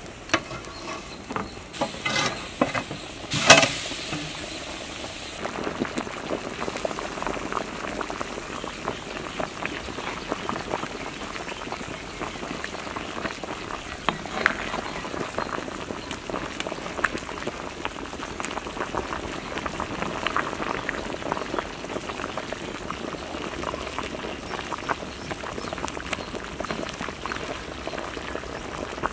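Pork gravy boiling hard in a large aluminium pot: a steady bubbling with many small pops. In the first few seconds there are several sharp knocks, the loudest about three and a half seconds in.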